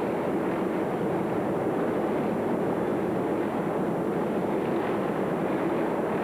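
Steady rumbling din of a large indoor arena, with no single sound standing out.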